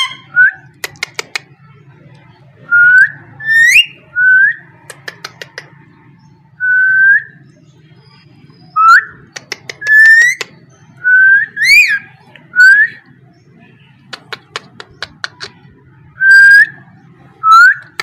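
Caged parakeet giving about a dozen short rising whistles, one held a little longer near the middle, with quick runs of sharp clicks in between.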